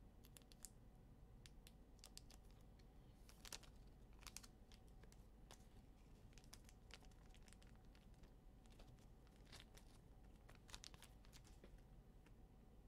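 Faint scattered clicks and rustles of trading cards and their packaging being handled, over near silence.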